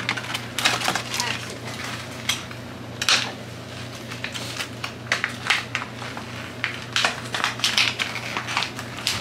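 Plastic and cardboard toy packaging crinkling and clicking in hand as a doll is unpacked from its box, with irregular sharp crackles throughout. A steady low hum sits underneath.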